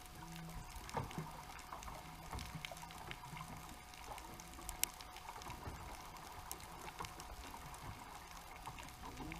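Underwater ambience heard through the GoPro's housing at about 80 ft: a faint hiss speckled with scattered short clicks, one sharper click a little under five seconds in, and a low hum that comes and goes.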